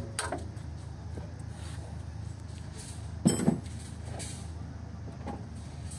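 A turbocharged diesel engine on a 65 kVA generator set running steadily under load, a low even hum. A sharp double knock, like a sheet-metal panel, about three seconds in.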